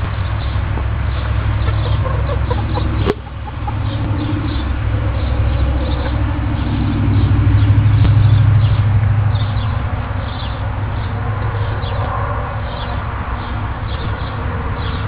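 Chickens clucking over a steady low hum, with one sharp click about three seconds in.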